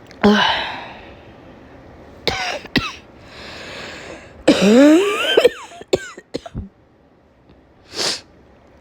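A woman with a cold in a coughing fit: a hard cough, then a couple more, a drawn breath, a longer voiced cough rising in pitch and a few short ones, with one brief breath near the end.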